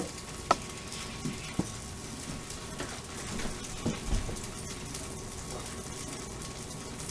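Buttered bread sizzling steadily in a frying pan, with a few light knocks about half a second, a second and a half and four seconds in.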